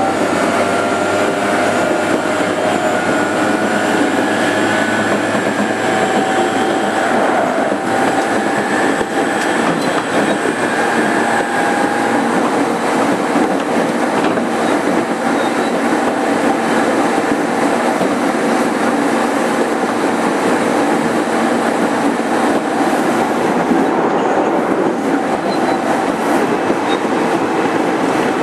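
A JR 205 series 5000 electric train running, heard from inside motor car MoHa 205-5022: a steady rumble of wheels on rail. The motor's whine shifts up and down in pitch through the first dozen seconds, then fades into the running noise.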